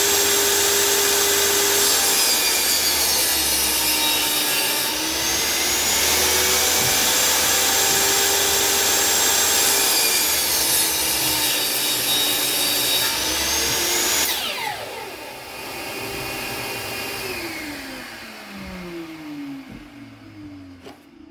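Table saw cutting wood with a vacuum running alongside; the motor's whine sags twice as the blade works through the wood. About fourteen seconds in the machines are switched off and wind down with falling pitch.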